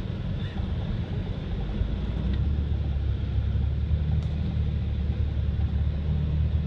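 First-generation Toyota Tacoma's 3.4-litre V6 engine running as the truck drives on packed snow, heard from inside the cab as a steady low drone with road noise. The drone grows louder about two seconds in.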